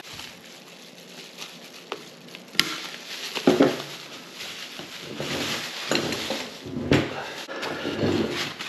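Plastic bubble-wrap packaging rustling and crinkling as it is pulled off a bicycle fork, with a few sharp clicks and knocks from handling.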